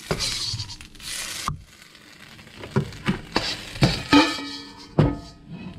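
Beef strips and vegetables sizzling in a hot wok, the sizzle stopping abruptly after about a second and a half. Then a few sharp knocks of a spatula against the wok, one ringing briefly.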